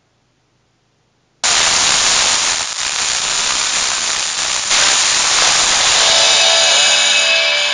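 Demodulated wide-band FM radio static from a HackRF software-defined radio in the RF Analyzer app: near silence, then about a second and a half in a loud hiss cuts in suddenly as wide-band FM demodulation switches on. Toward the end, faint wavering tones of a station's audio come through the hiss as the receiver is tuned onto a broadcast station near 106.9 MHz.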